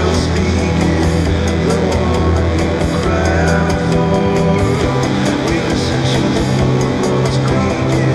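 Rock music from a studio band recording: drums keeping a steady cymbal beat over bass and guitars at a loud, even level.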